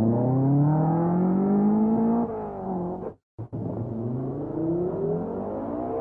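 A rally car's engine accelerates hard, its pitch climbing for about two seconds before it eases off. After a brief sudden break, an Audi Quattro rally car's turbocharged five-cylinder engine accelerates with its pitch rising again.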